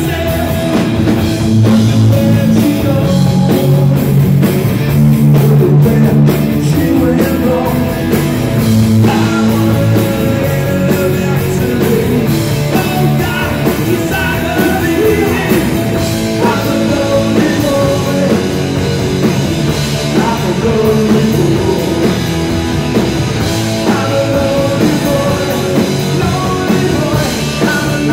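Live punk rock band playing loud and without a break: electric guitar, electric bass and drum kit.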